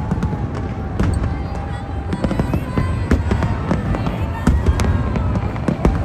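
Fireworks going off in rapid succession: many sharp cracks and bangs over a continuous low rumble of explosions.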